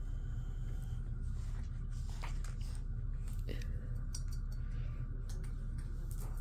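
Steady low room hum with a few faint, short clicks scattered through it.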